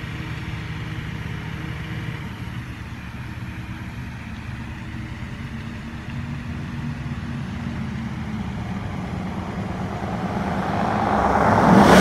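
Straight-piped Dodge Ram pickup's engine and unmuffled exhaust approaching as a steady low drone. It grows louder over the last two seconds and passes close by at the very end.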